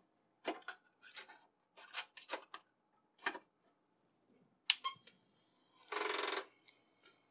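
Clicks and knocks as a 5.25-inch floppy disk is handled into the Apple III's disk drive, then a sharp switch click about two-thirds of the way through as the computer is powered on. A faint steady high hiss and a brief half-second buzzing whirr from the floppy drive follow.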